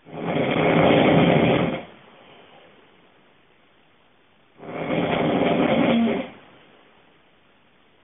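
A sleeping person snoring loudly: two long snores, each nearly two seconds, about four and a half seconds apart, with quiet breathing between them.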